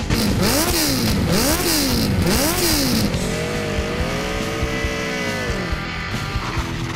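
Motorcycle engine revved up and down three times in quick succession, then riding past on a steady note that drops in pitch as it goes by.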